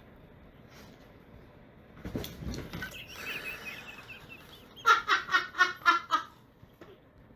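Husky vocalizing: a low rumble about two seconds in, then a high wavering whine, then a quick run of about six short calls around five seconds in.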